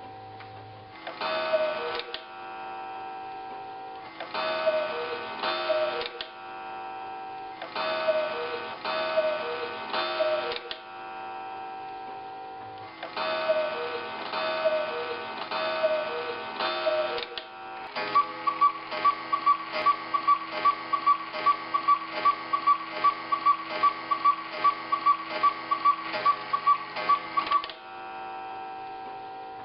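Quail-and-cuckoo clock striking. Its bellows-driven pipes sound two-note bird calls in four groups, each group longer than the one before, over the clock's ticking. Near the end comes a fast, even run of repeated calls, about two a second, for roughly ten seconds.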